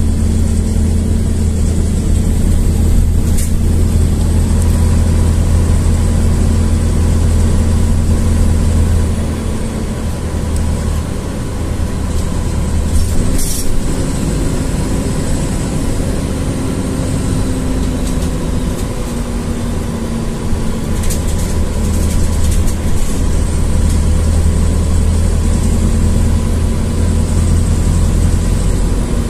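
LiAZ-4292.60 city bus heard from inside the cabin while under way: the engine runs with a steady low drone that eases off about a third of the way in and builds again later on. A sharp click or rattle comes around the middle, with a few lighter ones later.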